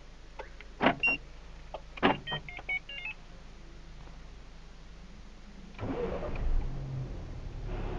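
Remote start by a car alarm: loud clicks and a run of short electronic beeps at several pitches, then about six seconds in the Volkswagen Jetta's engine starts and settles into a steady idle.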